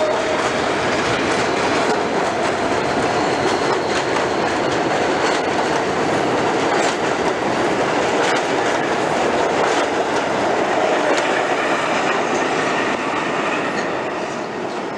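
R160 New York City subway train running past along an elevated station platform, its wheels clattering over the rail joints. The noise eases off near the end.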